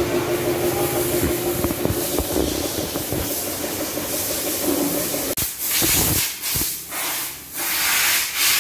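Pressure washer jet spraying water onto a motorcycle, a steady hiss over a steady hum. About five seconds in the sound changes abruptly into short bursts of hissing spray that start and stop several times.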